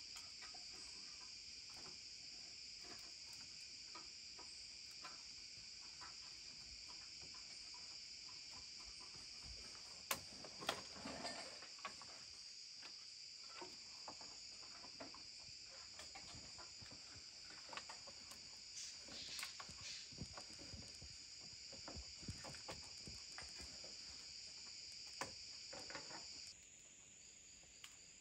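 Faint, steady high-pitched chorus of forest insects, with scattered small knocks and rustles of wooden poles and cord being handled as the poles are lashed together. The insect chorus drops off abruptly near the end.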